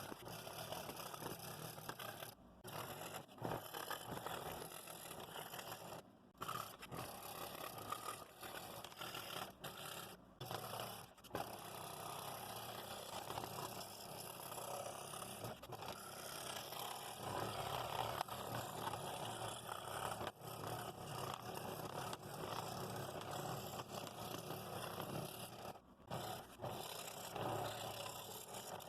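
Scroll saw running and cutting thin wood with a fine No. 3 blade, a steady buzzing rasp broken by a few brief pauses.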